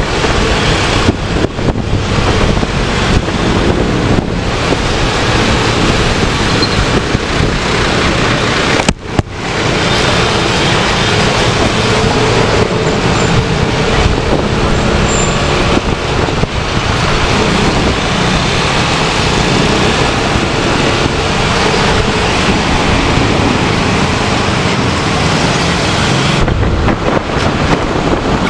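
Steady rush of wind and road noise from riding a motorcycle in traffic, the engine running underneath. The noise drops out for a moment about nine seconds in.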